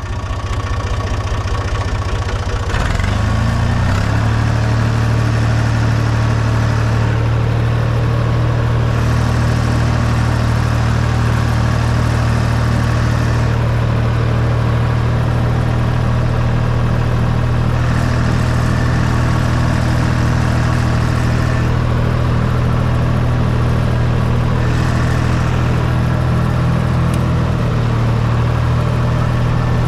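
Fiat Someca 500 tractor's diesel engine speeding up about three seconds in, then running steadily at higher revs, and easing back near the end.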